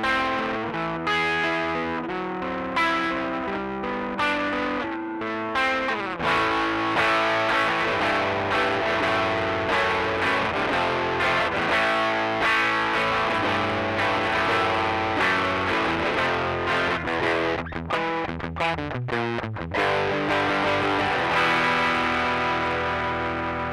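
Electric guitar played through a Rocktron Austin Gold overdrive pedal set to a light overdrive, drive at 12 o'clock and pre-bass turned fully down: picked single notes and chords, a few short choppy strums about three-quarters of the way through, and a chord left ringing at the end.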